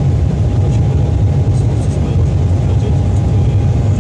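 Embraer 190 in its climb after takeoff, heard inside the cabin: the steady low rumble of its GE CF34 turbofan engines and airflow, with a thin steady whine above it.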